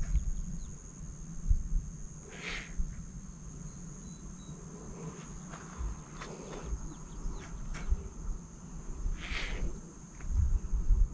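A steady, high-pitched insect drone runs over low rumbling thumps. Two short rustling noises come about two and a half seconds in and again near the end.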